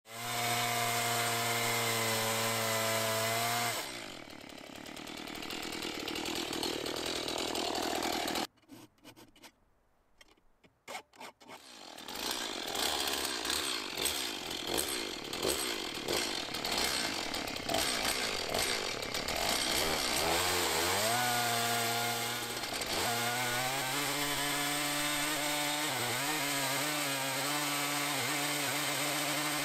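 Stihl MS 170 small two-stroke chainsaw, mounted in an Alaskan chainsaw mill and fitted with a regular crosscut chain, ripping a log lengthwise at high revs. The engine note sags and turns rough as the saw works the cut, then rises again and holds a steady high pitch. About a third of the way in, the sound stutters and nearly drops out for a few seconds.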